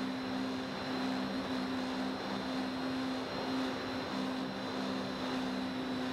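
Quadcopter's electric motors and propellers in flight, picked up by its own onboard camera: a steady buzzing hum with two low tones that briefly drop out and return as the motors adjust, a thin high whine, and a constant hiss.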